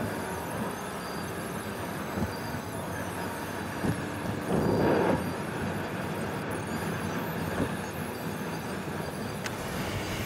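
Steady road and engine noise heard from inside a car cruising along a two-lane road. About halfway through, a louder rush lasts about half a second.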